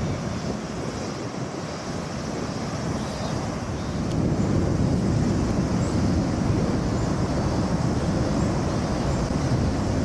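Wind buffeting the microphone over a steady low rumble of distant traffic, growing somewhat louder about four seconds in.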